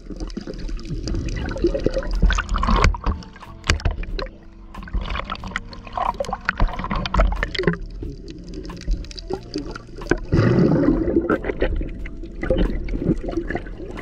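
Underwater sound on a camera held below the surface: water swishing and gurgling around it, with many scattered sharp clicks and knocks. A louder gurgling swell comes about ten and a half seconds in.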